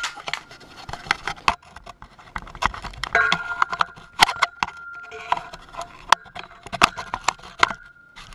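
Handling noise from a camera being picked up and moved: a string of irregular clicks, knocks and light scrapes.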